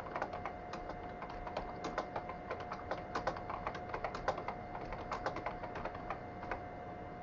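Typing on a computer keyboard: a quick, irregular run of key clicks that stops shortly before the end, over a faint steady tone.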